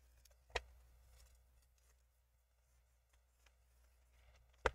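Near silence with two short, light clicks, one about half a second in and one near the end, from the MacBook Pro being handled as its newly fitted screen is closed.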